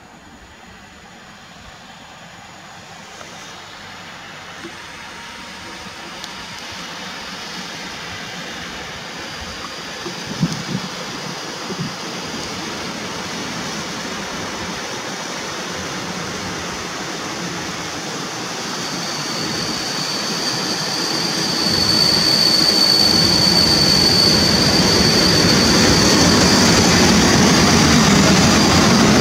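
PKP Intercity electric-locomotive-hauled passenger train approaching and drawing alongside, its running noise growing steadily louder. A high steady squeal joins about two-thirds in, and the low rumble jumps up soon after as the train reaches the listener.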